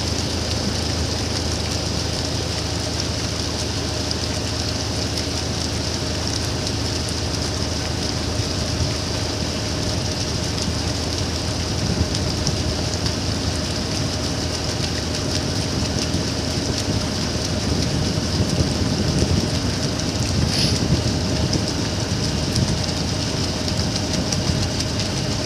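Motorboat engine running steadily under way: a constant drone with a steady hiss over it.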